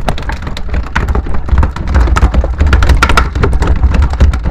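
Freshly landed small tuna thrashing on the wooden deck of a boat, their tails slapping rapidly and irregularly, busiest in the second half, over a steady low rumble.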